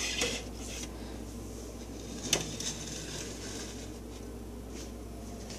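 Steady low hum in the room, with a short rustle at the start and a couple of light knocks, one about two seconds in and a fainter one near the end.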